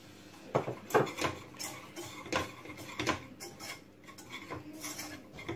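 Wire whisk clinking and scraping against a stone-coated saucepan in quick, irregular strokes, starting about half a second in, as flour is whisked into melted butter for a roux.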